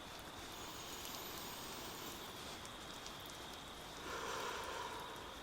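Steady soft rain ambience, with a slow breath about four seconds in.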